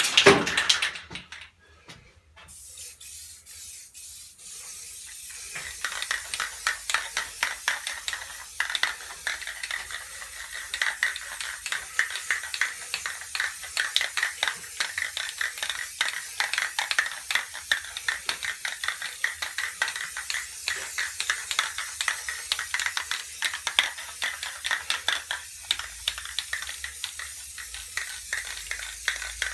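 A brief clatter, then from about five seconds in an aerosol spray paint can hisses in quick short bursts as paint is sprayed onto a hardboard panel.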